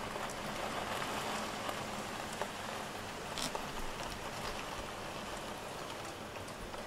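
Heavy downpour beating on a window: a steady hiss of rain with occasional sharp ticks.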